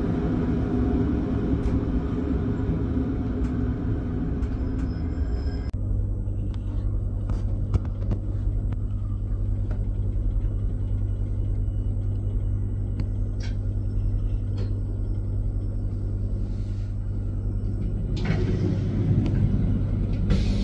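Rhaetian Railway narrow-gauge electric train running, heard from on board: a steady rumble that changes abruptly about six seconds in to a lower, steadier hum with scattered clicks. Near the end a train passing close on the next track adds a louder rushing noise.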